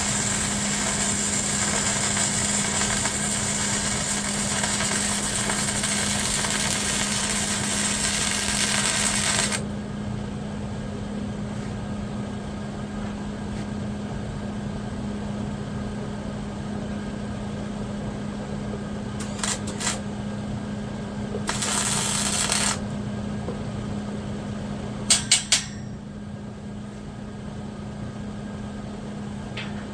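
MIG welder arc crackling steadily for about ten seconds, then stopping; a second, shorter burst of welding crackle of about a second follows later, with a few sharp metallic clicks, over a steady low hum.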